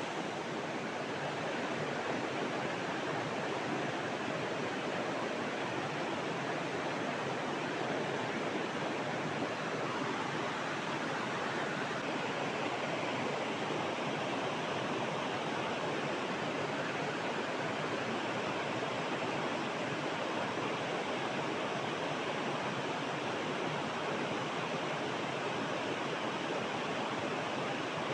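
Steady rush of river water flowing around large rocks.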